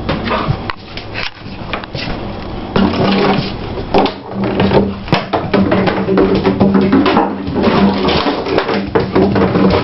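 Empty plastic juice bottle crackling and clattering on a vinyl floor as a puppy chews and pushes it, in sharp irregular clicks and knocks. Music plays in the background throughout, with sustained notes, louder from about three seconds in.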